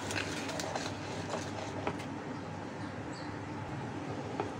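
Small wire hand whisk stirring thick cake batter in a plastic bowl: steady soft scraping and churning with a few faint ticks of the wires against the bowl, over a low steady hum.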